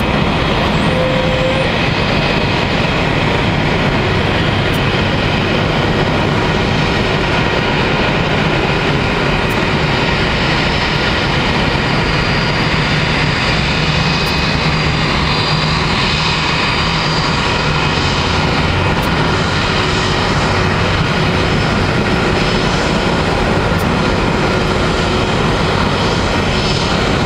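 Airbus A320-214's CFM56 jet engines running steadily as the airliner rolls out along the runway after touchdown: an even rush with faint thin whining tones, no surge or fade.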